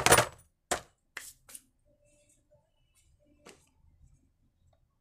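Pliers and other metal hand tools clinking in a metal tool tray, then a few separate light clicks and knocks as things are handled on the workbench.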